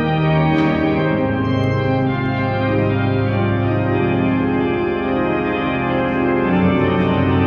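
Cavaillé-Coll pipe organ improvising, sustaining full chords over deep pedal bass notes that shift every second or so, with a fuller, louder chord coming in near the end.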